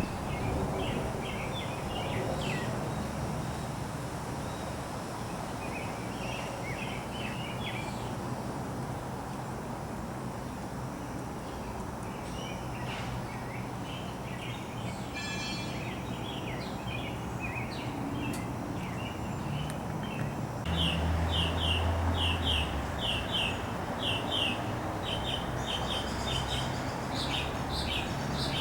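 Wild birds chirping in short scattered phrases over a steady low background rumble. About two-thirds of the way in, one bird starts a louder, regular run of chirps, about two a second.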